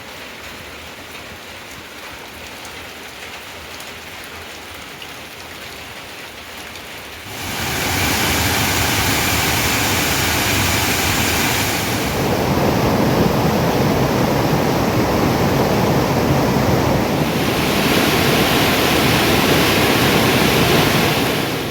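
Steady rain hiss. It gets clearly louder about seven seconds in and shifts slightly twice after that.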